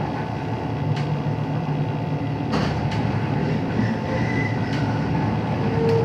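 Cabin sound of a JR 221-series electric train running at a speed restriction: a steady rumble of wheels and running gear with a low hum, a few sharp clicks, and short high squeals around the middle and near the end as it nears the station.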